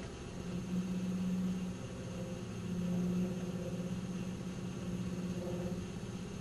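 1997 Nissan Maxima SE's 3.0-litre V6 idling with a low droning resonance that swells and fades, loudest about a second in and again about three seconds in. The drone only happens at idle and its cause is unknown.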